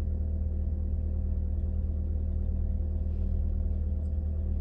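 Car idling, a steady low hum heard from inside the cabin.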